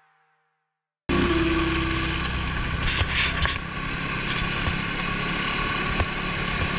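Snowmobile running steadily under way, heard from the rider's seat, with rushing noise and a thin steady whine over a low engine rumble. The sound cuts in abruptly about a second in, after a moment of silence.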